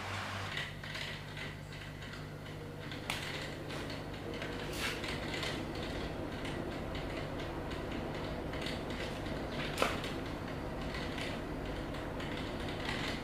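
Repair work with hand tools: irregular mechanical clicks and creaks, with sharper taps about three seconds in and again near ten seconds, over a steady low hum.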